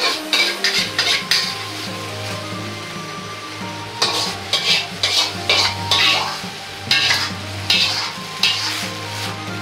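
Metal ladle scraping and knocking inside a wok in three runs of quick strokes, pushing stir-fried pork and bean sprouts out onto a plate.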